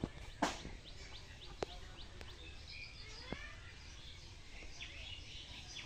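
Small birds chirping on and off over a low outdoor background, with a few sharp clicks, the clearest about half a second in.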